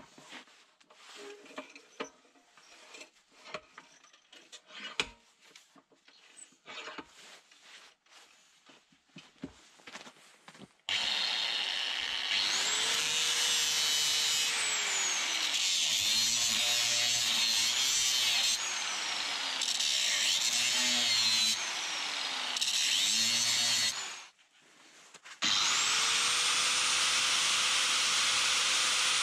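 Scattered knocks and clicks as a steel bar is handled and clamped in a bench vise. Then a corded angle grinder with a cut-off disc spins up and cuts the steel bar, its pitch sagging several times under load. It winds down, starts again about a second and a half later and keeps cutting.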